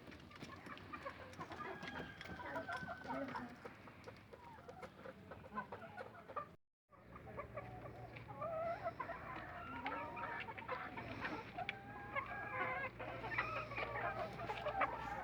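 A flock of laying hens clucking and calling, many short scattered calls at once. About seven seconds in the sound cuts out for a moment, and after it a low steady hum runs under the clucking.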